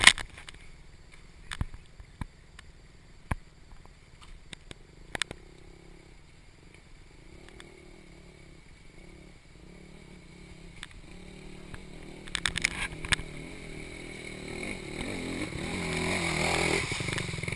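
Honda CRF150R four-stroke dirt bike engine approaching from a distance, growing steadily louder as the bike rides up a shallow creek, then splashing through the water close by near the end.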